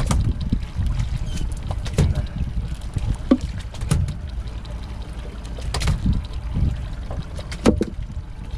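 Water sloshing and splashing against the hull of a small boat, with a steady low rumble and scattered knocks and clicks from gear on the deck.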